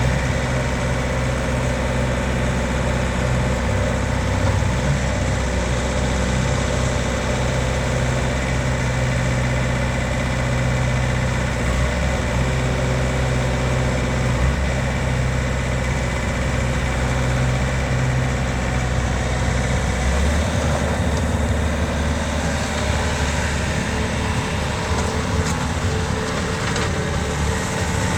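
Bobcat S550 skid steer loader's diesel engine running steadily; its note changes about twenty seconds in.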